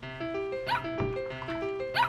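Background music with a simple stepped melody, over which a dog whimpers twice in short, bending whines, one about a second in and one near the end.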